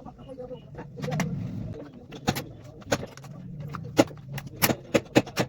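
A series of sharp clicks and knocks, several in quick succession in the second half, over a low steady hum.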